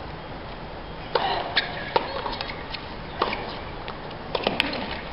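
Tennis ball struck by rackets and bouncing on a hard court during a rally: several sharp pops from about a second in, over a steady background hum of the venue.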